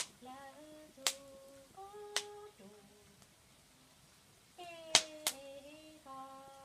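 A Hmong woman singing unaccompanied in short phrases of held notes with small bends in pitch, pausing for about two seconds in the middle. Sharp slaps sound now and then, loudest a pair about five seconds in.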